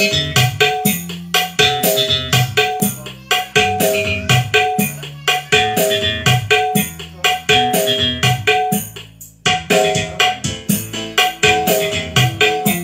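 Instrumental music with a hand-drum beat over keyboard chords and a bass line, with a short break about nine seconds in.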